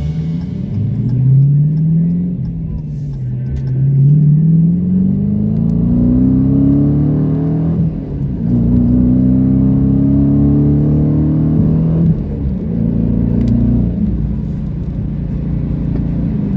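Car engine accelerating through the gears, its pitch climbing and dropping back at each shift, about three times.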